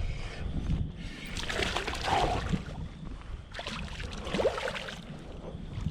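Hooked largemouth-type bass splashing and thrashing at the water's surface in irregular bursts while being played in, over a steady rumble of wind on the microphone.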